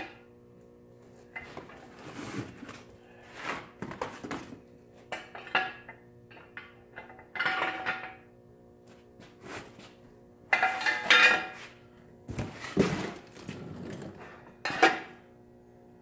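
Steel Craftsman 3-ton jack stands clanking as they are handled: the ratcheting centre post is worked and the stands are knocked and set down, a string of separate metal knocks and clicks with short ringing.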